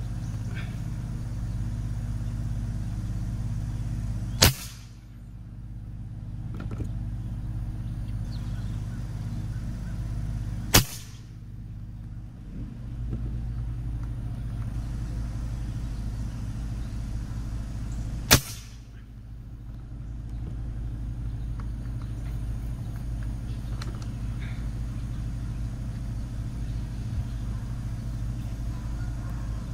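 Three shots from a regulated AEA Challenger .357 bullpup PCP air rifle, each a single sharp crack, spaced about six to seven seconds apart. A steady low hum runs underneath.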